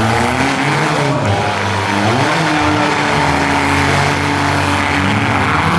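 Several compact 4- and 6-cylinder derby car engines running at once, revving up and down in overlapping rises and falls.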